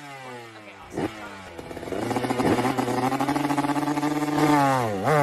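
Small motor scooter engine revving: the pitch falls over the first second or so, then holds at a steady high rev, dipping briefly near the end.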